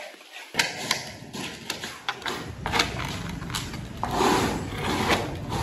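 A steel rebar rod scraping and knocking against a stone tile on a wooden plank: rough grating strokes with sharp knocks every second or so, growing louder and denser near the end.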